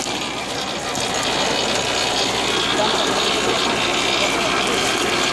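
Double potato digger running, with a steady mechanical clatter of its chains and gears.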